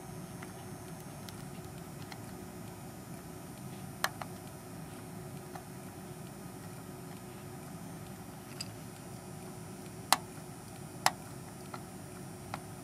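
Small screwdriver tip clicking against the freshly desoldered pins of a 28-pin DIP chip on a circuit board, as each pin is pushed to break any leftover solder bond. About half a dozen sharp, scattered clicks over a steady low hum.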